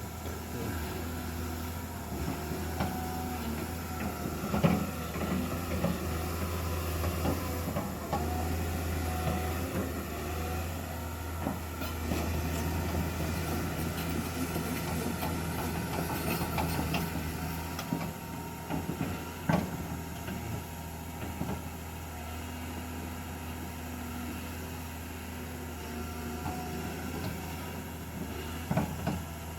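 Heavy earthmoving machine's engine running steadily, with occasional sharp metal clanks from the working machine.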